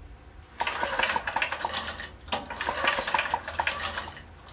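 Briggs & Stratton small engine pulled over twice on its recoil starter. Each pull brings a rapid metallic clattering and clicking, and the engine does not fire: it has lost spark.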